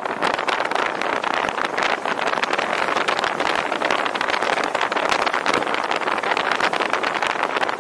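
Car driving: a steady rush of road and wind noise.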